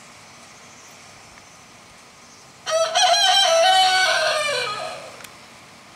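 A rooster crowing once, loud and close: a few short notes about two and a half seconds in, then a long held note that drops in pitch at the end.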